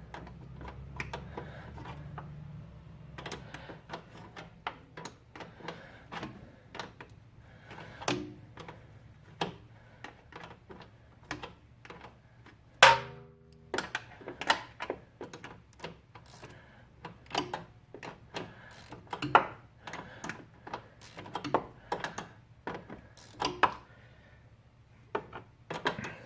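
An 11 mm open-end wrench clicking against a brake line fitting as it is repeatedly taken off and repositioned to tighten the nut a little at a time, with irregular sharp metal clicks about one or two a second. One louder metallic clank with a brief ring comes about 13 seconds in.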